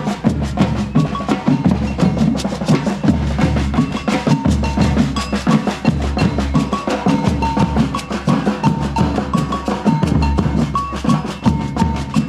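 A group of drums playing a fast, dense rhythm, with sharp stick-on-wood clicks among the hits and a simple high melody running over it.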